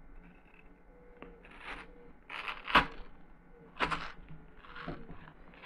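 A metal heart-shaped cutter being pushed through a wedge of raw watermelon, the crisp flesh crunching and squelching in several short bursts, the loudest about halfway through.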